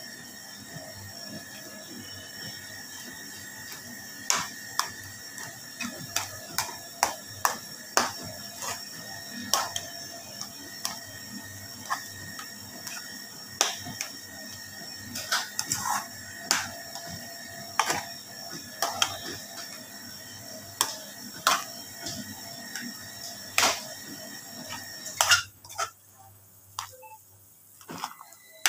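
Metal spoon scraping and knocking against a metal pan while stirring thick, sticky biko rice, in sharp irregular clicks about one or two a second. A steady hum underneath drops away near the end.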